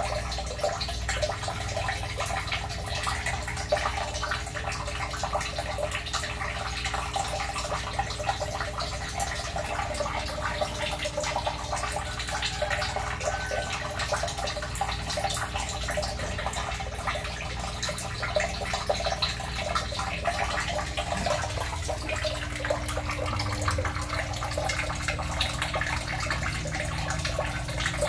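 Water splashing and trickling steadily, an even hiss peppered with fine ticks.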